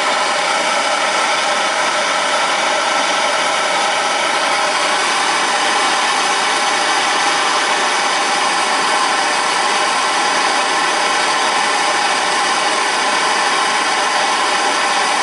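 Handheld gas torch burning with a steady hiss, heating a small black-iron pipe cap to melt solder inside it.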